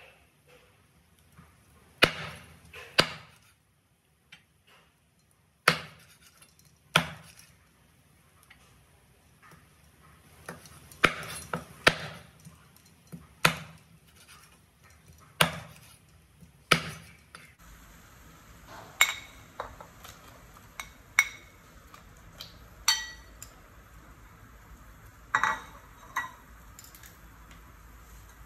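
Cleaver chopping raw chicken on a wooden cutting board, a sharp knock every second or two. About two-thirds of the way in, the chopping stops and a few ringing clinks follow over a faint steady hiss.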